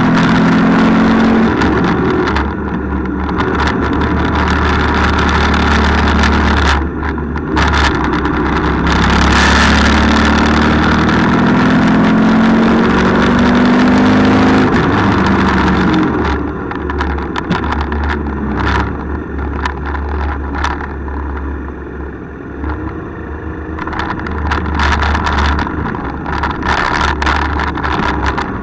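Motorcycle engine running under way, its pitch rising and falling with the throttle through the bends, over a steady rush of wind on the microphone. From about halfway the sound drops slightly and turns choppy.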